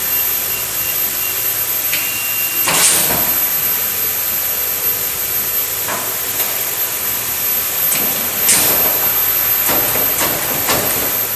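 Steady loud hiss, with a few knocks and clicks scattered through it; the loudest come about three seconds in and again about eight and a half seconds in.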